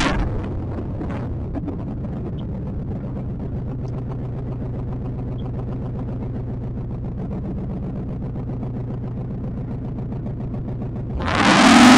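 Small-block Chevy 350 V8 running at low revs as the car creeps along, a steady low exhaust rumble. About eleven seconds in, the engine is revved hard and rises sharply in pitch and loudness.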